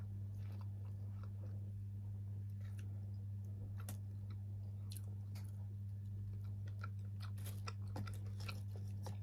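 Close-miked chewing and mouth sounds of someone eating rice, with scattered sharp wet clicks, over a steady low hum.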